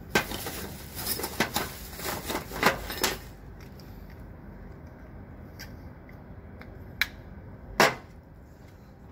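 Plastic clicks and rattles from handling threaded PVC pipe fittings and a plastic tool case: a dense run of clicks for about three seconds, then two sharp clicks near the end.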